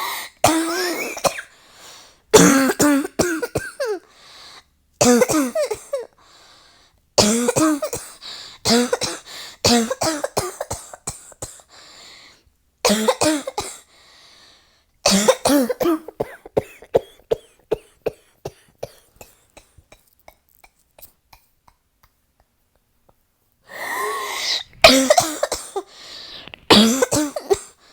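A person in a coughing fit: bout after bout of coughs in quick clusters. The coughing stops for about four seconds about two-thirds of the way through, then starts again near the end.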